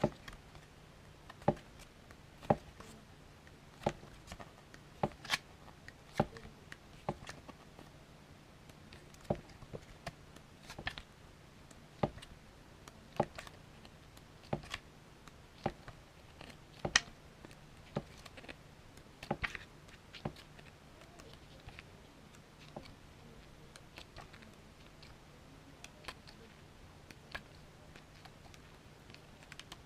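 Pages of a small paper booklet being flipped one at a time, each turn a short flick about every second or so, thinning out in the last third.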